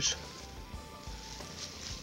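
Faint background music with held notes.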